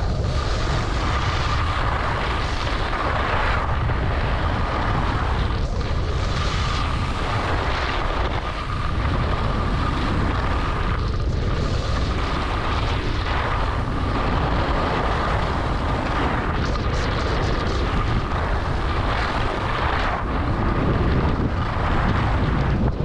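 Wind rushing and buffeting over the microphone of a skier's point-of-view camera, with skis hissing and scraping on groomed snow through the turns of a downhill run. The noise swells and eases, and a steady thin tone sits under it.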